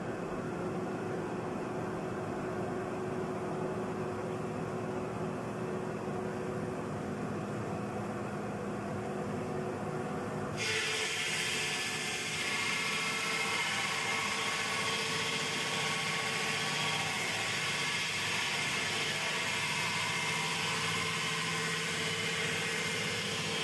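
Stone block-cutting machine's water-cooled circular saw blade cutting through a solid granite block: a steady mechanical run with a constant hum. About ten seconds in, a harsh hissing sound comes in abruptly and stays, a little louder.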